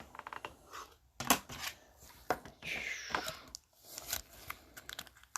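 Trading cards and their packaging being handled: scattered light clicks and rustles, with a longer crinkling tear about two and a half seconds in.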